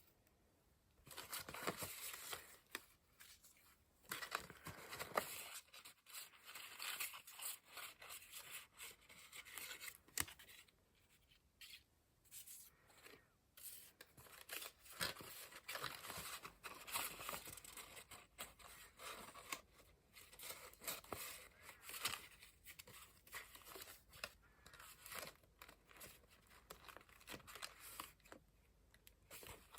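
Paper and craft materials handled close up: irregular bursts of paper rustling, scraping and small clicks that start about a second in.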